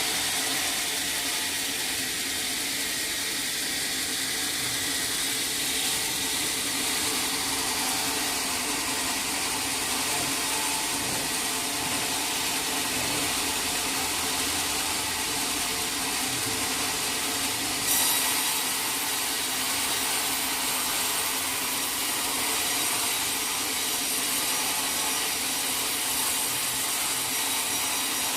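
Sawmill saw running steadily through a teak log, a continuous hissing, high-pitched sawing noise that gets a little louder and brighter about two-thirds of the way through.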